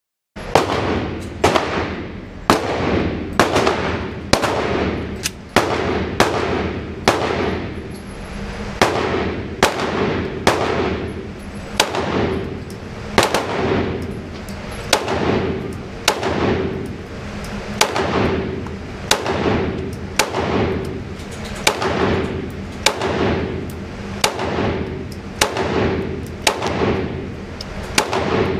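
9mm Glock 19 pistol firing a long string of shots, about one a second, each shot ringing on in the echo of an indoor range.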